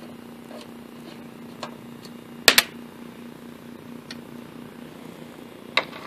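Sharp clicks and clacks of hand tools working on the mower: a socket driver on the engine's mounting bolts, then the tool at a plastic work table. A loud double clack comes about halfway through and another single clack near the end, with fainter ticks between, over a steady low hum.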